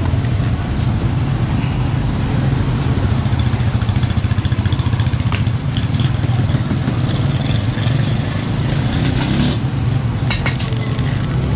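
An engine idling steadily with a fast, even low pulse, like a motorcycle or other small motor vehicle, with a few short sharp clicks.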